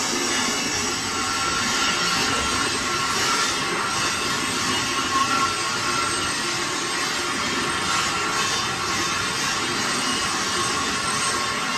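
Metal-turning lathe running steadily, turning the bearing journal of a forage harvester rotor while the rotor's welded blades spin with it. The sound is a continuous hissing whir with faint steady whine tones.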